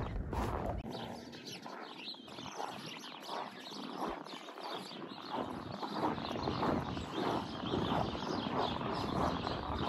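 Footsteps on a packed-snow path at a steady walking pace, growing louder and more regular after about five seconds.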